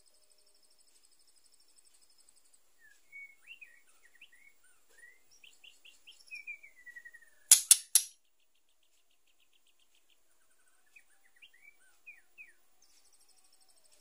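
A female white-rumped shama calls with scattered short chirps and twittering notes, with a falling whistled glide and a short trill in the middle. These are female calls of the kind used to stir a male into breeding condition. A quick run of three loud, sharp cracks about halfway is the loudest sound, and a high, steady pulsing whine is heard at the start and near the end.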